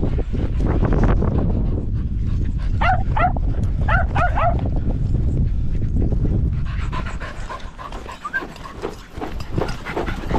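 A dog barking: two quick runs of three or four high, yappy barks about three and four seconds in, over wind buffeting the microphone.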